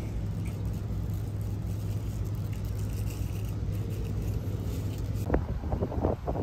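A steady low vehicle-engine rumble. About five seconds in, a run of short bird calls in quick succession begins.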